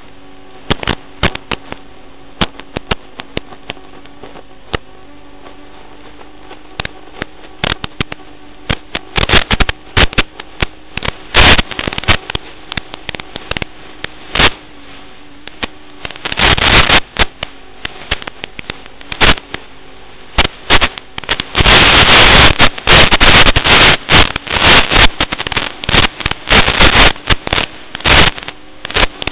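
Crackling and popping static from an analog FPV video link's audio as the radio signal breaks up, over a faint steady hum. The crackle thickens into loud bursts of hiss, the longest about three quarters of the way through.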